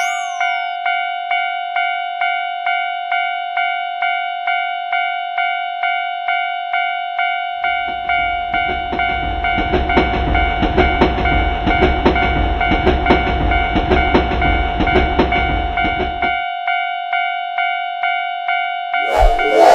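Japanese railroad crossing warning bell ringing its steady electronic "kan-kan" about twice a second. About eight seconds in, a train passes for some eight seconds with a low rumble and the rapid clatter of wheels over rail joints, while the bell keeps ringing.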